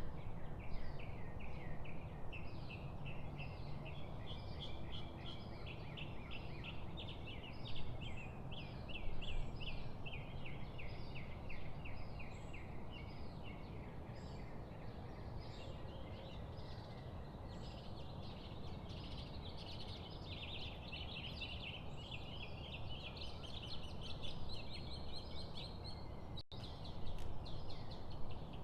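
A chorus of small songbirds singing and chattering in quick runs of repeated notes, over a steady low background rumble.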